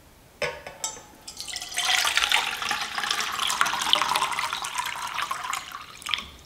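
Water poured from a glass measuring cup into a metal backpacking cook pot. A few clicks come first, then a steady splashing pour of about four seconds, which ends with a click.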